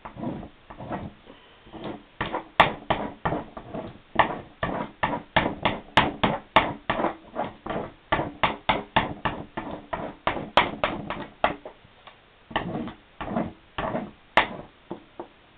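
A wax candle rubbed hard back and forth over a glossy magazine page, about three rubbing strokes a second, coating the page with wax. The strokes pause briefly about twelve seconds in, then resume for a few more.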